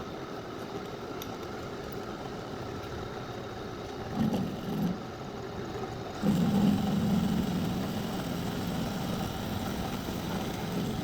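Metal lathe running steadily with a humming machine sound, getting louder about six seconds in.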